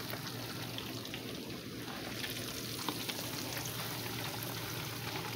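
Fish frying in a pot of hot oil: a steady sizzle with scattered faint pops.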